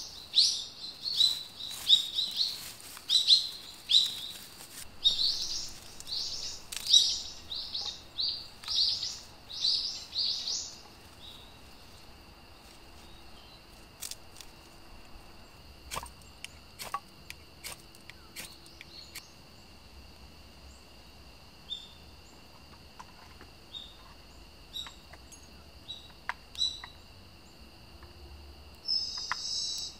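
A songbird repeating short high chirping notes, about two a second, which stop after about ten seconds. A thin steady high whine and scattered faint ticks remain.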